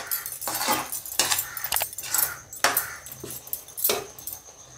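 Metal spatula scraping and clinking against a pan while stirring a thick gravy: a run of irregular scrapes and knocks, about two a second.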